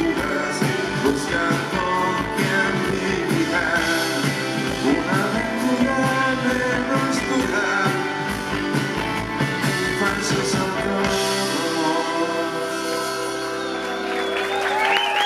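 Live rock band playing: electric guitars, drums and a singing voice. About eleven seconds in the drums stop and a final chord is left ringing.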